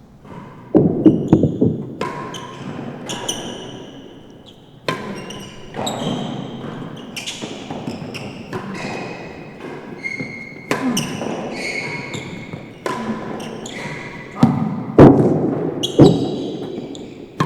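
Real tennis rally on an enclosed court: the hard ball cracking off rackets and bouncing off the court's walls and floor, a string of sharp knocks at irregular intervals, each ringing briefly in the hall. The loudest hits come near the end.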